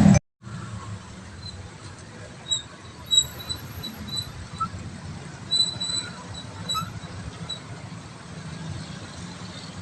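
Steady low rumble of road vehicles, with short high-pitched chirps scattered through the middle.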